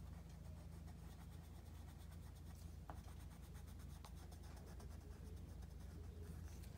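Coloured pencil shading on paper: a faint, steady scratching of quick back-and-forth strokes.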